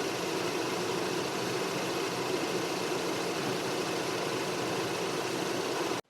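High-mileage Mazda RX-8's rotary engine idling steadily; the sound cuts off suddenly near the end.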